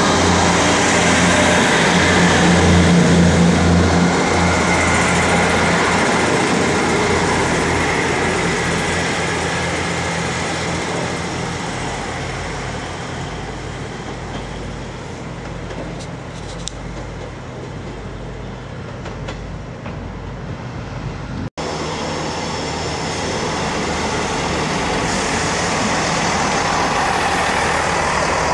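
A Class 158 diesel multiple unit's underfloor diesel engines pulling away, loud at first and fading steadily as the train leaves. After a sudden break about three-quarters of the way through, another Class 158 is heard coming past, its engines and wheels growing louder.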